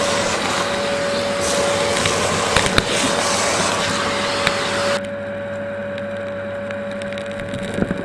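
Samsung 1600W canister vacuum cleaner running, heard from inside its dust container: a steady motor whine and hum under a rush of air, with a few sharp clicks of debris striking inside. About five seconds in, the high rushing falls away abruptly, leaving the motor hum and whine.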